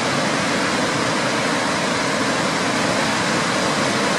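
Burney Falls waterfall: a steady, even rush of falling water.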